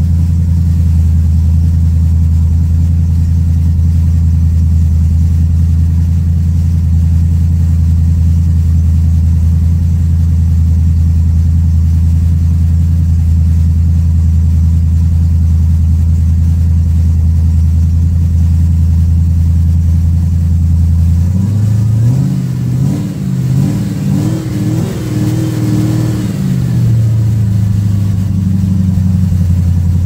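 Ford V8 engine with a four-barrel carburettor and the air cleaner off, running at a steady fast idle, then revved up and down several times by hand at the throttle about two-thirds of the way in before settling back to idle.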